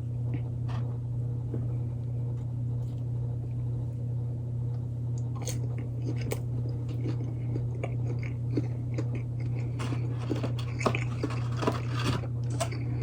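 A person biting and chewing crunchy breaded fried chicken nuggets close to the microphone, with wet crunching clicks that grow more frequent from about halfway through. A steady low hum runs underneath.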